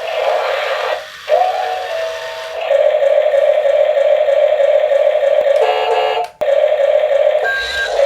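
Electronic sound effects from a toy RC forklift's small speaker: a steady buzzy tone with a short rising swoop about a second in, and a brief different set of tones around six seconds.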